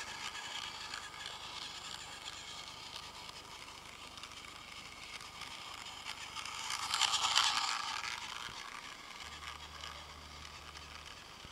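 Battery-powered toy train's small motor and gears whirring as its wheels run along plastic track. It grows louder as the train passes close about seven seconds in, then fades, and a low hum joins near the end.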